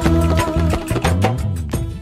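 Background music, an instrumental passage with a regular drumbeat of about four strikes a second, getting quieter near the end as the track fades out.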